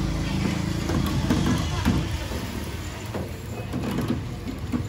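Busy street ambience: a steady low traffic rumble with indistinct voices and a few short knocks.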